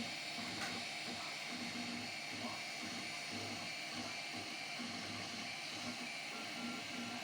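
3D printer at work: its stepper motors hum in short pitched tones that start and stop every fraction of a second as the print head moves, over the steady hiss of its cooling fans.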